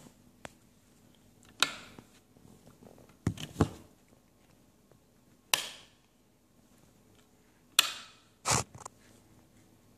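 Light switches being flipped: about seven sharp clicks at irregular intervals, two of them close together about three and a half seconds in.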